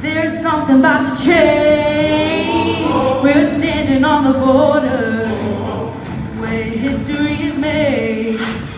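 Show choir singing together in harmony, with long held notes that shift in pitch.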